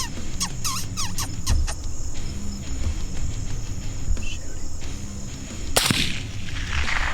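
A single hunting rifle shot about six seconds in, its report echoing away over the next second. Short chirping sounds come in the first two seconds.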